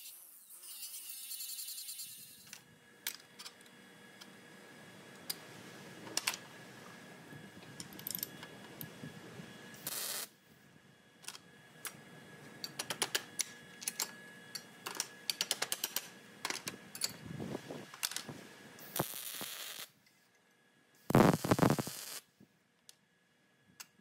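Angle grinder on steel plate for the first two seconds, then scattered small clicks and taps of steel parts being set on a steel welding table. About a second-long loud burst near the end, a MIG welder tack-welding the tab.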